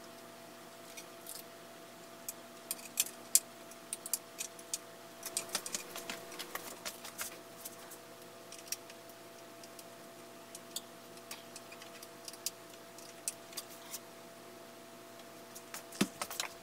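Sporadic light clicks and taps of small parts being handled while the front brake hose and its fittings are fitted on an electric dirt bike, thickest in the first half, over a faint steady hum.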